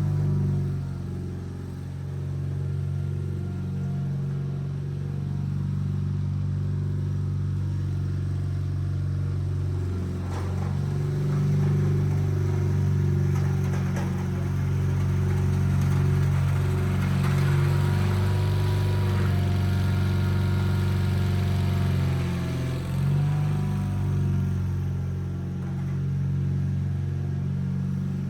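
Sears Craftsman FF24 garden tractor engine running steadily under load while pushing a 54-inch front plow through dirt, its note dipping briefly a couple of times.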